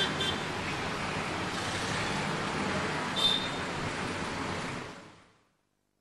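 Street traffic: a steady wash of passing vehicle engines and road noise, with two short high-pitched sounds, one near the start and a louder one about three seconds in. The sound fades out to silence about five seconds in.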